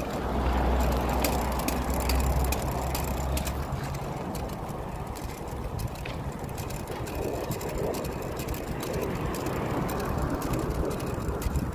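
Ride noise from a hybrid bicycle on the move: a low rumble of wind and road, heaviest in the first couple of seconds, with a scatter of small clicks and rattles from the bike.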